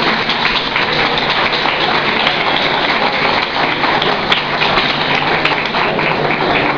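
Busy hall noise with many sharp taps and clicks scattered throughout.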